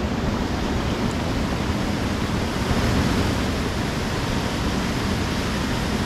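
Steady rushing of mountain waterfalls on the Achipse River: an even, unbroken noise of falling water.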